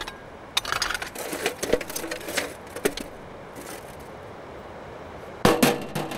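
Stones clacking and knocking against each other as rocks are picked up and set down by hand, in a scatter of short knocks, with a louder burst of sound about five and a half seconds in.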